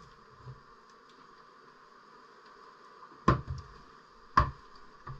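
Two sharp knocks about a second apart, the first a little past halfway and the second near the end, over a faint steady hum.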